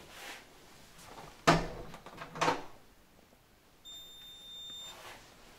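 A heavy door banging shut about a second and a half in, with a second knock just after, then a steady high electronic beep lasting about a second.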